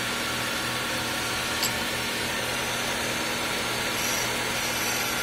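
Honda CR-V's four-cylinder engine idling steadily, heard close up in the open engine bay, with a faint click about a second and a half in.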